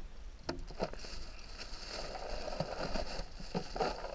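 A plastic bag rustling and crinkling as it is handled, building about halfway through, after a few light knocks.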